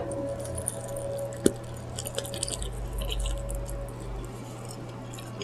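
A person chewing food close to the microphone: soft, wet mouth sounds with small crackles and one sharper click about one and a half seconds in, over a steady low hum.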